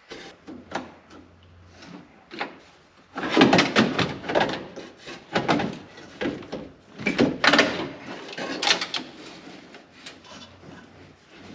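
Knocking, clicking and rattling of parts being worked loose under a car's dashboard, a busy run of knocks from about three seconds in until about nine seconds in, with scattered clicks before and after.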